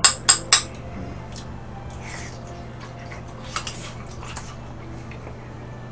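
A metal spoon clinking against a small porcelain bowl: three sharp clinks within the first half second, then a few faint taps, over a steady low hum.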